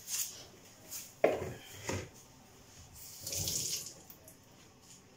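Kitchen tap running briefly into a sink, with a sharp knock about a second in and a few smaller clatters of things being handled at the sink.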